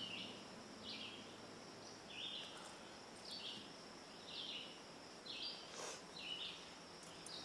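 A bird chirping over and over, about once a second, over a steady high insect drone, with one sharp crack about six seconds in: a golf club striking a ball off the tee.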